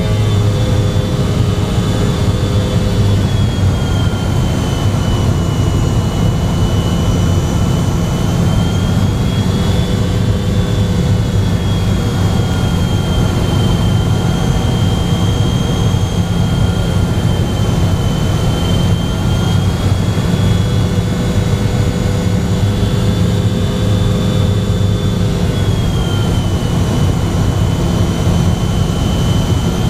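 MD-88's rear-mounted Pratt & Whitney JT8D turbofan engines running steadily, heard from inside the rear cabin: a low hum and rush with a high whine that drifts slowly up and down in pitch.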